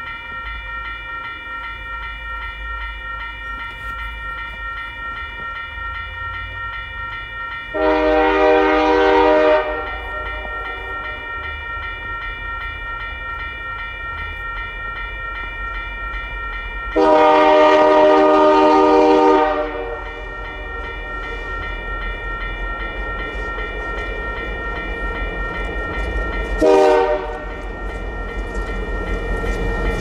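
Diesel freight locomotive's air horn sounding two long blasts and then a short one, the opening of the standard long-long-short-long grade-crossing warning, over the low rumble of the approaching train, which grows louder toward the end.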